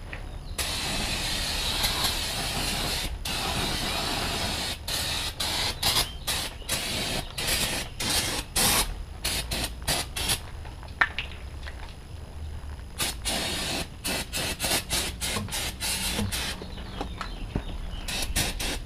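Aerosol can of brake cleaner spraying onto a disc brake to wash off brake dust: one long hiss of about two and a half seconds, then many short bursts.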